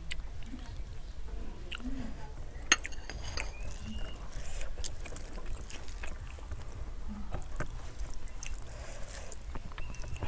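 Fingers mixing rice and fish curry on a steel plate: soft squishing with scattered light clicks against the plate, and one sharper click about three seconds in.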